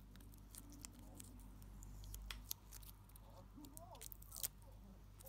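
Faint crinkling and small sharp clicks of thin clear plastic film being handled and peeled off a small pink plastic toy.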